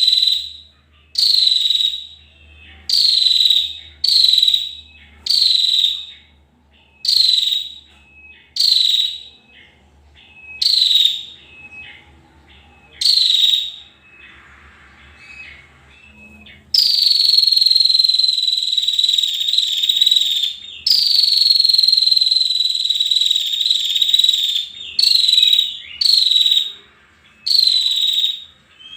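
Shrill, insect-like buzzing calls, each sliding slightly down in pitch. They come first as short buzzes about once a second, then, after a quieter pause near the middle, as two long unbroken buzzes of several seconds each, before the short calls return near the end.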